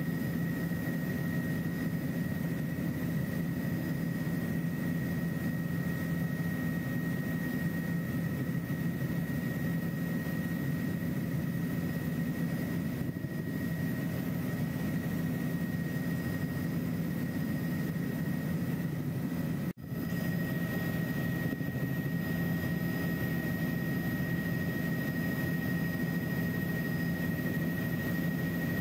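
Helicopter cabin noise in flight: a steady dense drone with a constant high whine. It drops out for an instant about two-thirds of the way through.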